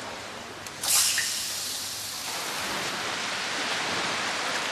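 Water starts with a sudden loud rush about a second in, then runs on as a steady hiss of spraying or splashing water at a swimming pool.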